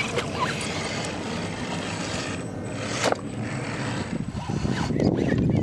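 Radio-controlled scale crawler truck with a Jeep Comanche body crawling over rocks: its small electric motor and gears running, with a continuous mechanical hiss and a few light clicks, getting louder near the end.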